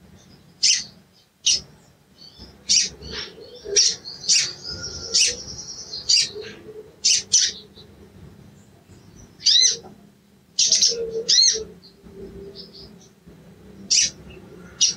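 Male olive-backed sunbird (sogon) giving sharp, high 'cuit cuit' chirps and short twittering phrases in bursts with brief pauses, the excited calling used as a lure to set other sogon calling.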